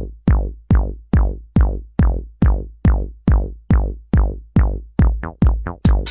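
Electronic dance music: a deep kick drum thumping about twice a second, doubling its rate near the end in a build-up, then hissing hi-hats and cymbals coming in with it.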